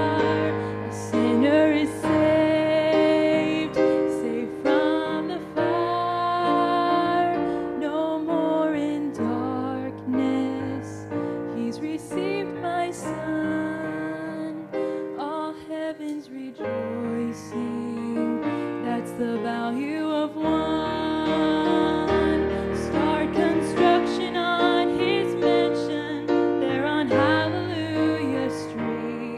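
A woman singing a church song, accompanying herself on a digital piano with sustained chords under her voice.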